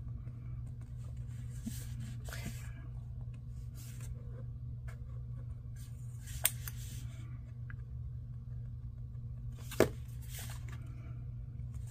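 Small stickers being peeled and repositioned on a paper journal page with metal tweezers: soft rustles and scrapes, with two sharp taps, one about six and a half seconds in and a louder one near the end as the tweezers are set down on the page. A steady low hum runs underneath.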